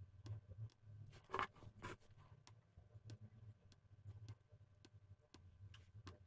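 Faint, irregular small clicks of hand soldering along a row of header pins on a circuit board, over a low hum, with a brief rustle about a second and a half in.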